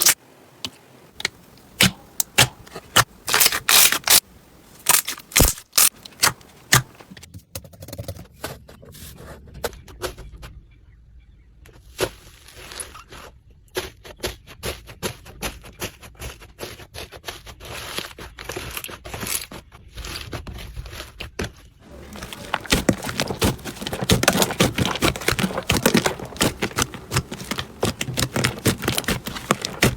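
Slime being worked by hand, making sharp crackling clicks and pops. The clicks come loud and separate at first, thin out in the middle, then turn into a dense run of crackling about two-thirds of the way through.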